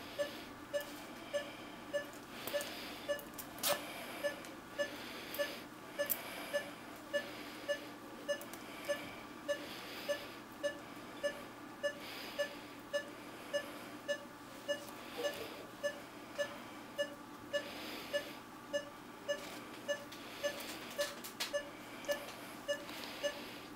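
Veterinary anaesthesia monitor beeping in time with the anaesthetised dog's heartbeat: a short mid-pitched beep a little under twice a second, steady throughout.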